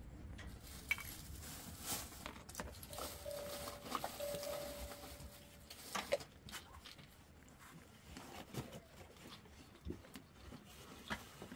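Faint scattered clicks and light knocks of plastic cups and small containers being handled, with the rustle of a plastic bag. A faint steady held tone comes in about three seconds in and lasts a couple of seconds.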